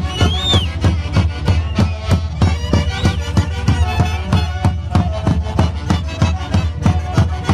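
Traditional Santiago festival music from Peru's central highlands, played by an ensemble of violins and wind instruments over a steady, even beat, with a few short sliding high notes.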